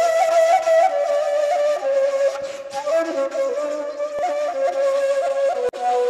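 Background music: a flute-like melody of stepped, wavering notes over a steady held drone note.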